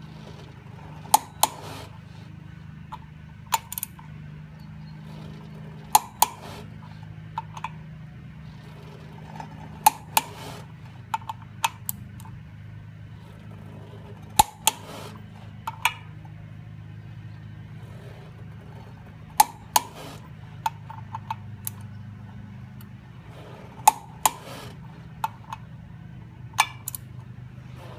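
Torque wrench and socket working the steel flywheel bolts being torqued to 108 Newton meters: sharp metallic clicks, mostly in quick pairs, every few seconds. A steady low hum runs underneath.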